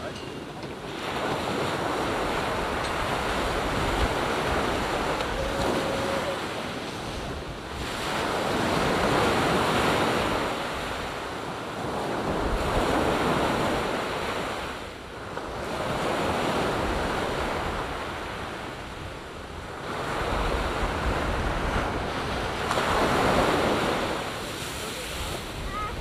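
Ocean surf breaking and washing up a sandy beach, a steady rushing that swells and ebbs in slow surges every few seconds.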